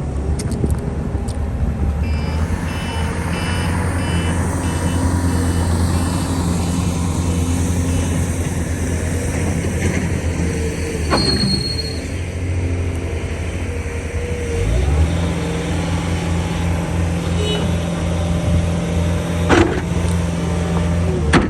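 Cat 262D skid steer's diesel engine running under operation, with a run of short, evenly spaced beeps from an alarm in the first several seconds. About fifteen seconds in the engine speeds up and holds at the higher pitch.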